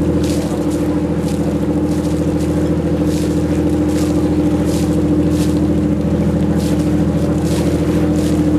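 Boat engine running steadily, a constant low drone that does not change in pitch, with irregular soft swishes over it.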